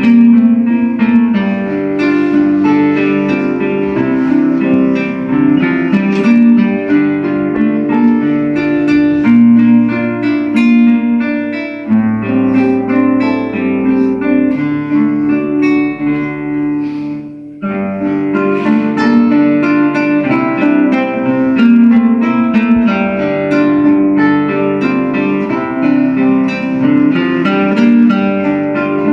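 Two acoustic guitars playing a duet, a steady stream of plucked notes with a bass line underneath, with a brief break in the sound about two-thirds of the way through.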